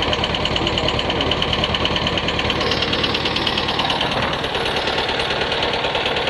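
T-25 tractor's air-cooled two-cylinder D-21 diesel running steadily with an even, rhythmic knock. The engine has just been rebuilt with new piston rings and reconditioned heads, and the owner likens the knock to valves tapping, though the valves checked out fine.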